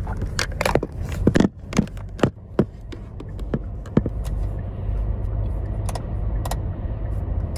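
Steady low hum of a car heard from inside the cabin, with a run of sharp clicks and knocks in the first few seconds that then give way to the hum alone.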